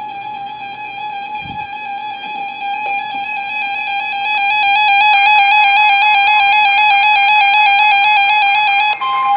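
A steady electronic tone with many overtones, growing louder over the first five seconds. A higher weather-radio warning alarm tone cuts in just before the end.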